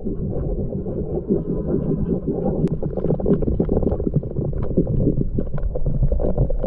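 Muffled underwater sound picked up by a submerged camera: a steady low rumble of moving water with many small clicks and crackles scattered through it.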